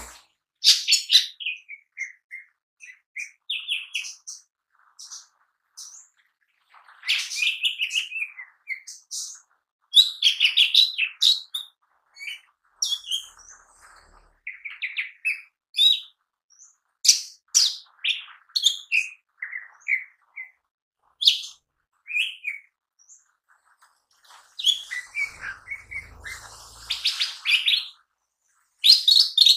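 Cucak ijo mini (green leafbird) singing a loud, varied run of chirps, whistles and quick trills in bursts with short pauses. This is the lively, full-voiced song that keepers call gacor, with the bird running through its learned repertoire.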